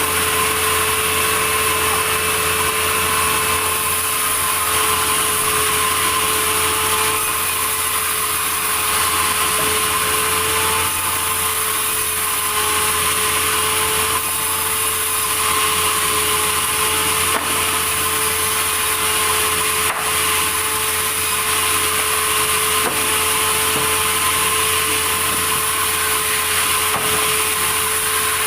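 Sawmill saw running steadily and cutting through a log, a constant machine hum under the rasp of the blade in the wood. A few sharp clicks come in the second half.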